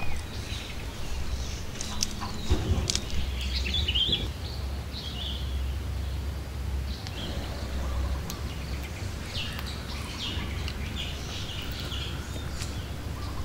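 Small birds chirping on and off over a steady low rumble, with a few rustles and light clicks, like steps through grass, in the first few seconds.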